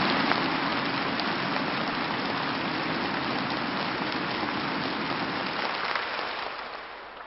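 A large audience applauding steadily, dying away near the end.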